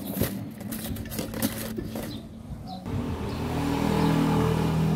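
A motor vehicle engine comes in loud and steady about three seconds in, after a few seconds of scattered knocks and clatter.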